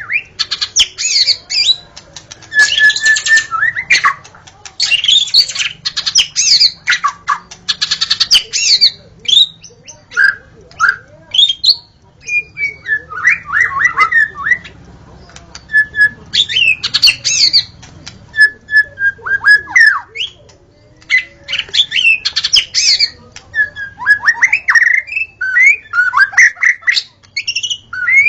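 White-rumped shama (murai batu) singing loudly: a long, varied run of quick sweeping whistles, short held notes and harsh rasping chatters, broken by brief pauses.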